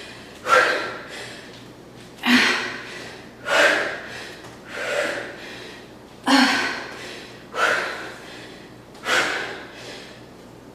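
A woman's hard, forceful breathing from the exertion of repeated jumping back lunges: sharp gasping breaths in a steady rhythm, seven of them, one about every second and a half.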